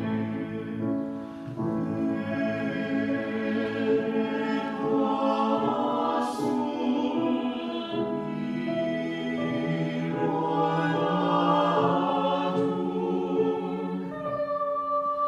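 A choir singing a slow, sustained piece in flowing legato, the voices holding chords that shift every second or so, with a brief sung 's' about six seconds in.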